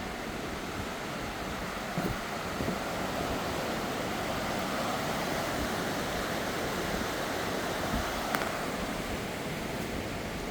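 Steady rushing of a swollen river running high after a flood, with a couple of short knocks about two seconds in and again later.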